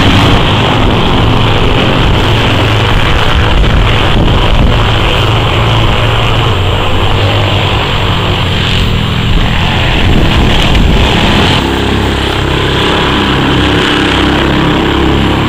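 Classic racing motorcycle engines running loud as the bikes pass along the course. About eleven seconds in the sound settles into a steadier, lower engine note.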